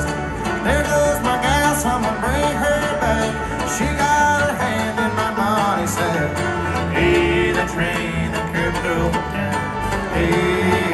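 Live bluegrass band playing an instrumental passage, with acoustic guitar, banjo and fiddle, picked up amid an arena crowd.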